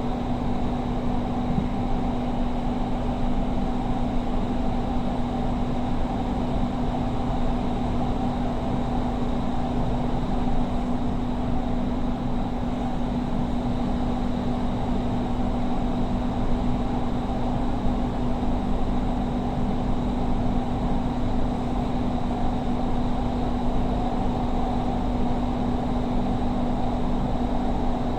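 Doha Metro train running, heard from inside the carriage: a steady rolling rumble with a constant hum.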